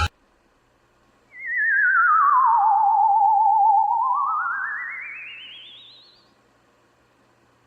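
A single theremin-like electronic tone with a fast vibrato. It comes in about a second in, slides down, holds low for about a second, then slides up high and fades out.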